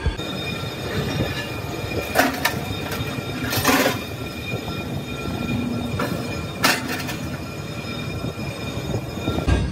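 A steady mechanical hum with three sharp metal clanks as a steel axle shaft is drawn out of a lathe chuck and knocks against the machine.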